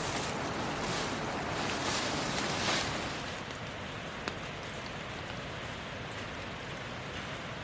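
Steady rushing noise with no clear pitch, easing slightly about three seconds in, with a single sharp click a little past halfway.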